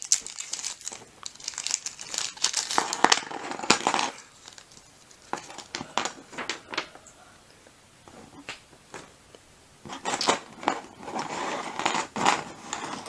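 Packaging around new lock picks crinkling and tearing as it is opened by hand. The crinkling is dense for the first few seconds, quiets to scattered clicks and rustles, and picks up again near the end.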